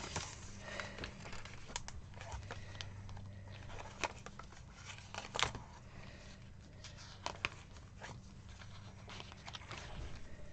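Pages of a sticker book being flipped: paper rustling, with short clicks as the sheets turn, over a faint low steady hum.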